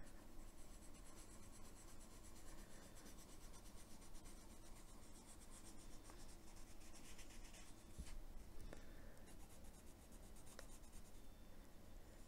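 Faint scratching of a Derwent metallic watercolour pencil colouring on paper, in rapid repeated strokes.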